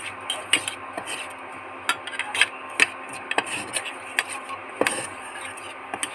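Steel spoon stirring rice flour in a small stainless-steel pot, with irregular clinks of the spoon against the pot's side. The flour is being worked through with ghee as it toasts.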